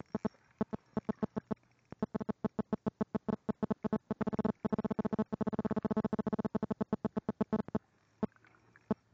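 Mobile phone interference picked up by the recording: a fast train of short, buzzy electronic pulses, sparse at first, then coming thick and loud for several seconds before thinning out near the end. It is the sign of a nearby phone signalling with the cell network as it starts to vibrate.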